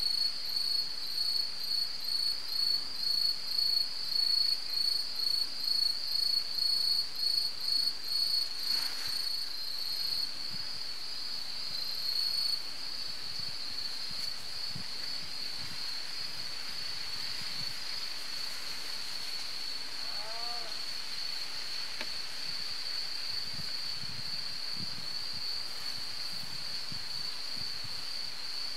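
Insects chirping in a steady high trill, pulsing about twice a second for the first ten seconds or so, then running on as one continuous trill.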